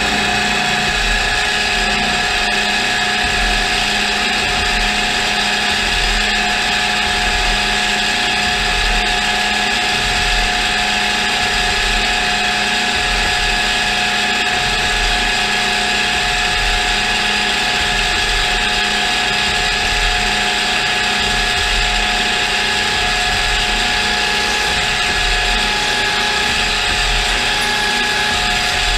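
CNC milling machine running its machining program, the spindle and drives giving a steady whine of several held tones.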